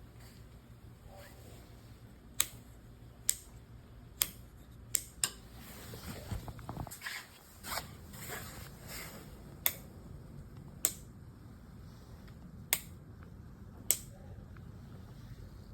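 A series of about nine sharp single clicks at irregular intervals, with a stretch of rustling handling noise and a low thump in the middle.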